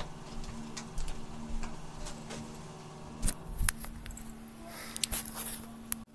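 A phone being picked up and handled while recording: several sharp knocks about three seconds in, then a brief rustle with clicks, over a steady low hum.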